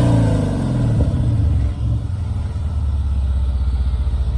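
The 2014 Mercedes-Benz SL550's 4.7-litre biturbo V8 drops back from a rev to a steady idle, its exhaust in the loud setting of the sound-management system.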